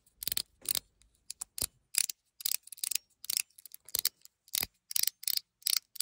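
Metal 42cosmo Mechanical fidget slider being slid back and forth, snapping into its detents with an irregular run of sharp clicks, about three or four a second.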